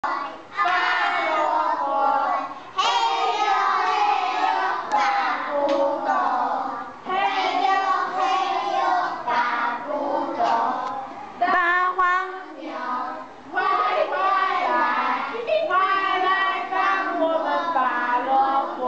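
Children singing in high voices, one phrase after another with short breaks.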